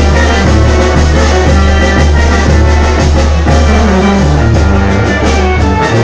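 Live brass band with a sousaphone and drums playing dance music, loud and continuous, with a heavy bass line.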